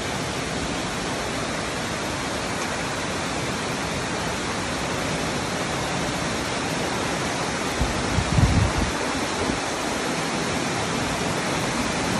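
Floodwater rushing steadily, an even, unbroken rush of fast-flowing water, with a short low rumble about eight seconds in.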